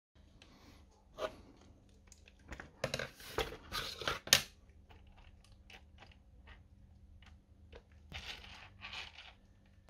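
Small clicks, knocks and rustles of hands and a screwdriver working on an RC car's metal chassis and engine, busiest a few seconds in with one sharp click, then two short rustles near the end.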